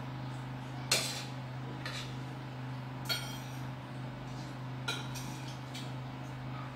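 Spoons and forks clinking against plates as a family eats, about four sharp clinks with the loudest about a second in, over a steady low hum.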